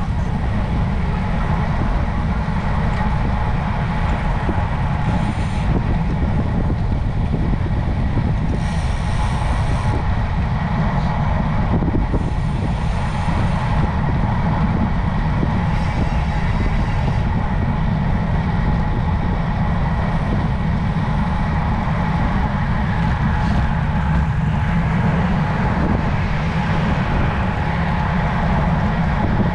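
Steady wind rush and road noise on the camera microphone of a road bike while riding, dominated by a heavy low rumble.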